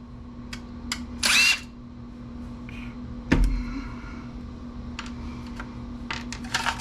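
Power screwdriver or drill briefly spinning out a screw from a desktop PC case, a short whirring burst about a second in. A single sharp knock follows a couple of seconds later, then light clicks of metal parts being handled.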